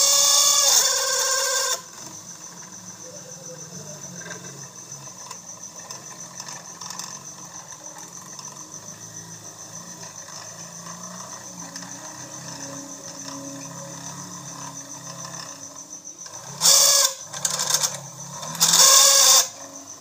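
Small homemade DC-motor drill whirring in loud spells, one at the start and three short ones near the end, with a quieter steady hum between. The drill is boring into a wooden strip.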